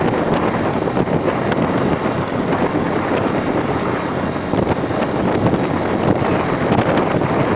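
Steady, loud wind rushing over the microphone of a moving vehicle, with a low engine hum underneath.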